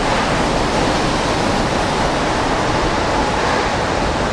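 Steady, loud rush of category-four hurricane wind and rain.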